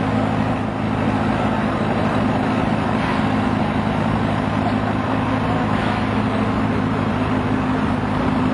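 Farm tractor engine running steadily under heavy load, dragging a weight-transfer sled down a pulling track. Its note holds at one even pitch throughout.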